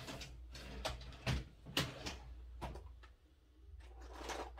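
Paper money and a plastic envelope binder being handled: a string of light rustles and taps, quieter for a moment past the middle and busier near the end.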